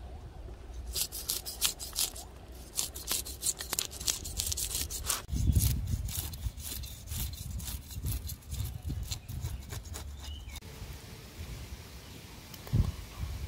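Metal fish scaler scraping the scales off a whole tilapia in quick, repeated strokes. The scraping stops shortly before the end, followed by a single dull thud.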